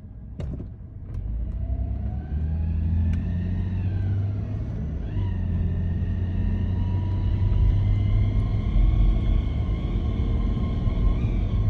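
1998 Toyota 4Runner on the move with a transmission whine over engine and road rumble. The whine rises in pitch for a few seconds, drops back about four seconds in, then holds steady. It is a noise the owner suspects may come from a slipping clutch.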